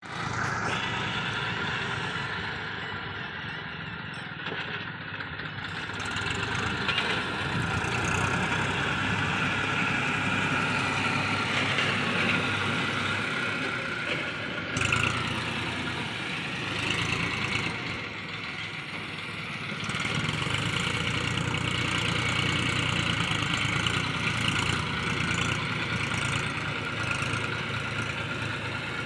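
Massey Ferguson tractor's diesel engine running while it drags a rear levelling blade through wet mix macadam gravel. The engine is steady throughout, and its loudness swells and eases several times as it works.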